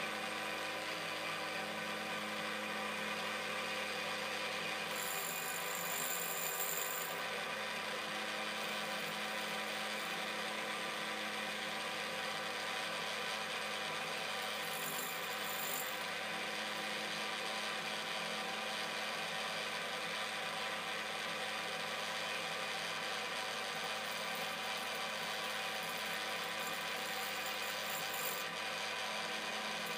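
Quorn tool and cutter grinder running steadily, its motor and coarse straight wheel giving a hum made of many steady tones. A diamond dresser is slid across the spinning wheel to true it, adding a brief hissing scrape about five seconds in, another around fifteen seconds, and a longer one near the end.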